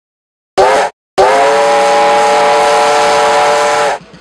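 Steam locomotive whistle: one short blast, then a long blast of about three seconds that stops abruptly.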